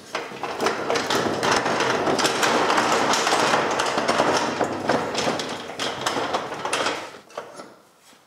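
Aluminium mobile scaffold tower rolling across a brick-paved floor on its castor wheels: a steady rattling clatter with many knocks from the frame. It dies away about seven seconds in, leaving a few light clicks.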